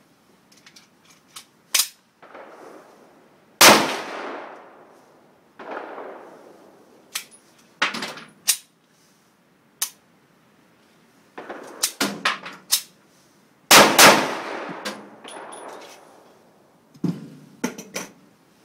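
Tokarev TT pistol firing 7.62×25 mm rounds: single sharp shots, each fading away with echo. The loudest comes about four seconds in and two come close together around fourteen seconds, among several fainter, shorter cracks.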